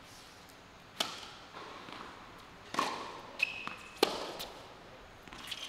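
Tennis ball struck by rackets in a rally on a hard court: the serve about a second in, the return a little under two seconds later, and another hit at about four seconds. Each is a sharp single pop, with a short high squeak in between.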